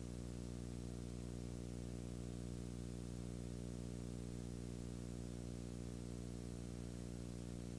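Steady electrical hum with a buzz of its overtones under a faint even hiss, unchanging throughout; no other sound.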